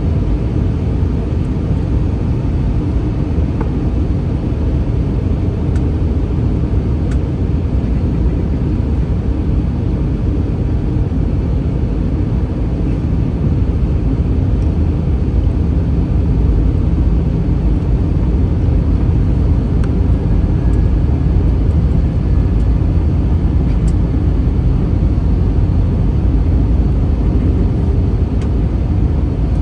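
Steady low rumble inside the cabin of an Airbus A321 airliner: engine and airflow noise, growing slightly louder about halfway through.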